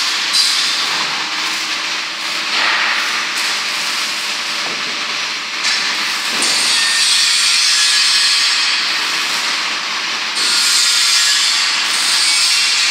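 Loud, steady rushing and hissing machine noise, growing brighter and louder about six seconds in and again about ten seconds in.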